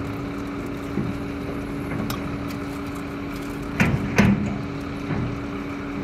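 Diesel engine of heavy earthmoving machinery running at a steady speed, with two loud sharp knocks close together about four seconds in.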